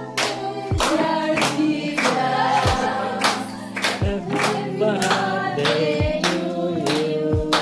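A group singing a song together, with hand claps keeping a steady beat at a little under two claps a second.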